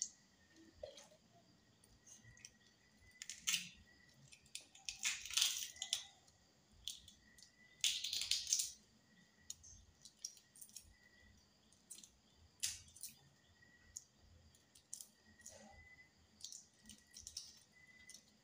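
Shell of a boiled egg being cracked and peeled by hand: scattered small clicks and crackles, with a few longer crackling bursts.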